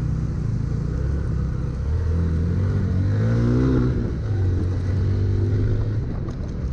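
Motorcycle engine running under load on a rough dirt track, its pitch climbing as it revs up about two seconds in, then easing back to a steadier lower note.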